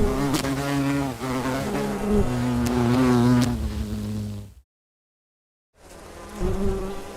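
Honey bees buzzing, a wavering pitched hum. It cuts off abruptly about four and a half seconds in, and after about a second of silence the buzzing starts again.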